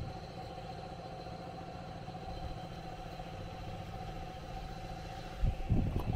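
A small engine running steadily at idle, a low hum with an even pulse. Near the end a louder low rumble comes in.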